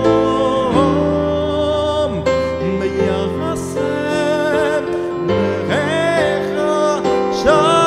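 A man singing a slow melody with vibrato while playing sustained chords on a keyboard.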